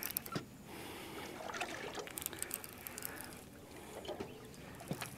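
River water lapping and splashing at a small boat's side, with scattered sharp clicks and knocks, as a hooked blue catfish is brought up to the boat.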